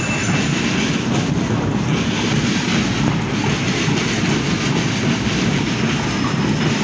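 Rain pouring down, a steady dense hiss with no breaks.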